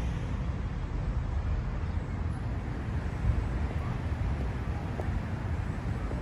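Wind buffeting the microphone outdoors: a steady, uneven low rumble with faint street ambience behind it.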